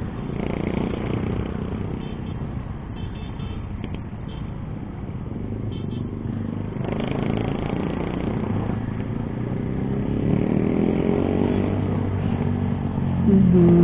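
Keeway CR152 motorcycle's single-cylinder engine running in traffic, its pitch rising as it accelerates from about ten seconds in. A louder pitched tone cuts in near the end.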